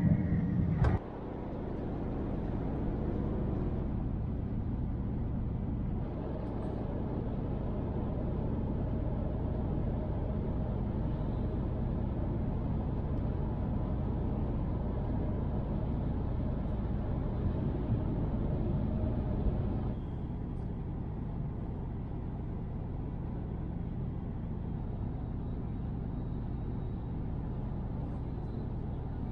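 Steady low rumble and hiss inside the passenger cabin of a running Tohoku Shinkansen train, with small shifts in level about six and twenty seconds in. Background music cuts off about a second in.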